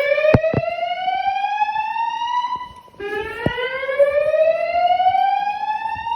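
System Sensor SpectrAlert Advance fire alarm speakers sounding the whoop evacuation tone, the evacuation signal that alternates with the recorded voice message. Each whoop is a slow rising sweep of about three and a half seconds. One sweep ends and the next begins about three seconds in, and two short clicks come under a second in.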